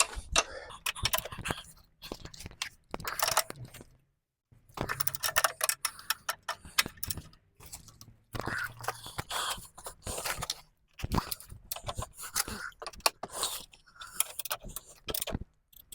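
Hand tools working on metal: irregular ratchet-wrench clicks and metallic scraping as a bolt on the subframe is tightened, the clicking pausing briefly about four seconds in.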